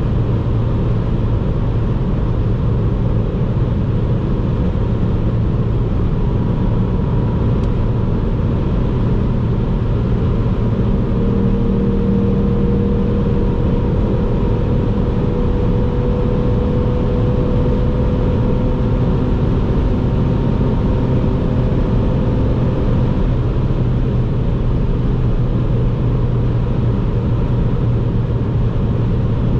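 Ford Fiesta ST's 1.5-litre turbocharged three-cylinder engine and tyre roar, heard from inside the cabin while cruising at steady autobahn speed: a constant low rumble with a faint steady engine tone through the middle.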